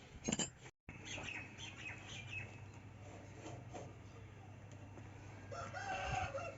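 A pitched animal call, about a second long near the end, over a steady low hum; the sound drops out briefly about a second in.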